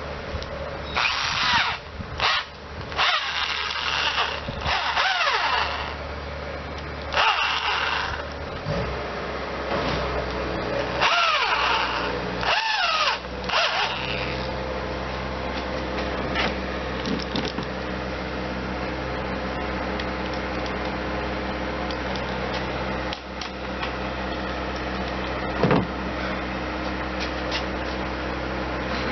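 Power drill running with a steady motor hum, broken in the first half by several louder, harsher stretches; after that it runs evenly to the end.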